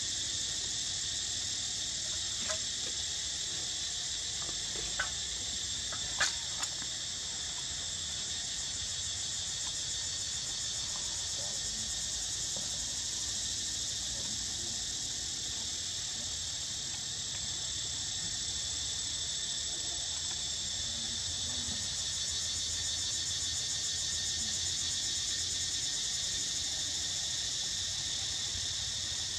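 Steady, high-pitched chorus of insects with no break. A few short, sharp clicks fall in the first seven seconds, the loudest about six seconds in.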